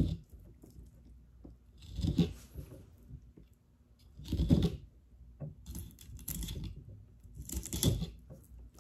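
Fillet knife cutting a hogfish fillet away from the backbone and tail, heard as four short bursts of cutting and tearing about two seconds apart.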